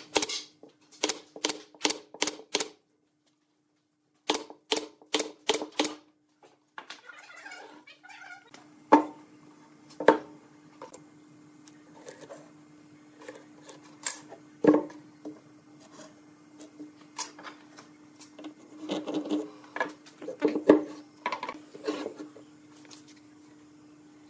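Pneumatic nail gun firing nails into pine blocks in two quick runs of sharp shots in the first six seconds. After that come occasional knocks of wood and tools on the bench, with a steady low hum underneath.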